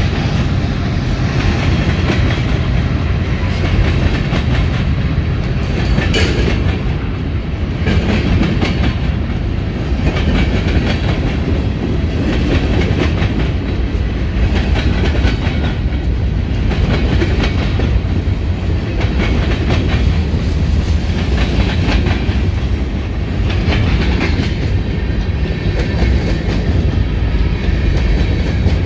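Empty bulk-grain hopper cars of a freight train rolling past, wheels clacking in a regular rhythm over a steady low rumble.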